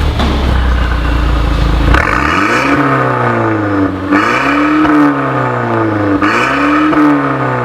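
Mercedes-Benz A250 AMG's turbocharged 2.0-litre four-cylinder running through an Armytrix valved exhaust, first at a low rumble and then, from about two seconds in, revved repeatedly, its pitch rising and falling about every two seconds.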